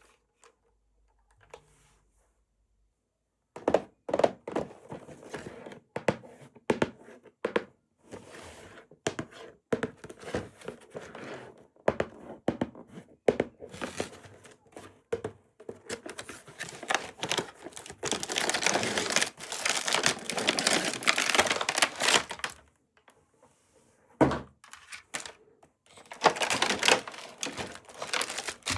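Toy unboxing by hand: a quick run of clicks, taps and knocks of plastic and metal parts being handled, with longer stretches of crinkling plastic packaging in the middle and near the end.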